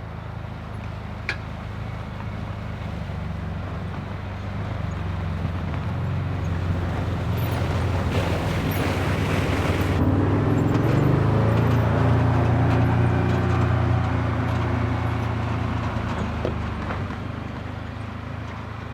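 Engine of a Can-Am Defender 6x6 side-by-side running, with the pitch rising as it works harder. It grows louder to a peak about eleven to fourteen seconds in, as if approaching, then eases off. A single click comes about a second in.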